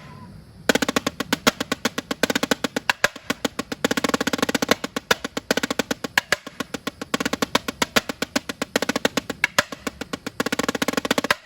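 Snare drum played with sticks in fast freestyle patterns and rolls, with dense, rapid strokes and accents. It starts a little under a second in and stops just before the end.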